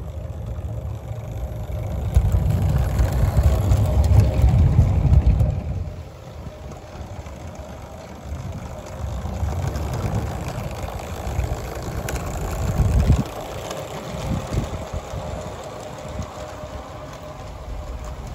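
Garden-scale model diesel locomotive and its wagons running past on the track, a low mechanical rumble that is loudest about two to five seconds in as they pass close, then quieter. There is a sharp knock about two-thirds of the way through.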